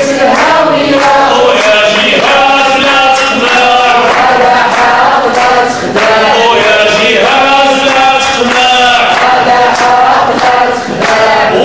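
A man singing a chant into a hand-held microphone, amplified, with long held notes.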